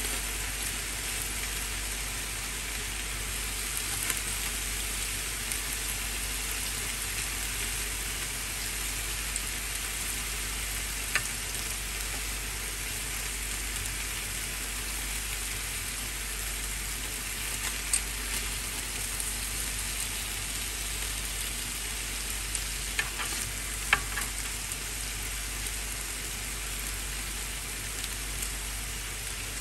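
Chicken pieces sizzling steadily as they fry in a grill pan. A few sharp clicks of the utensils on the pan come as the pieces are turned, one about a third of the way in and a small cluster past the middle and toward the end.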